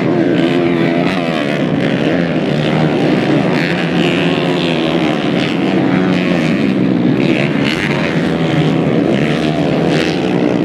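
Several trail bike engines racing, buzzing with pitch rising and falling as the riders work the throttles through the dirt track.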